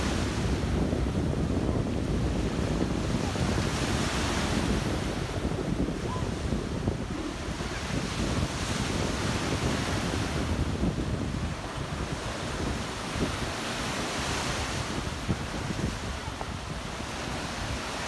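Black Sea surf breaking and washing up a sandy beach, the hiss of the wash swelling every four or five seconds. Wind buffets the microphone with a low rumble.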